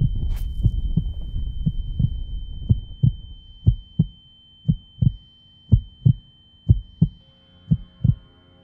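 Heartbeat sound effect: slow double beats about once a second, coming through as a noisy rumble fades out over the first few seconds. A steady high ringing tone runs over it, and soft music starts faintly near the end.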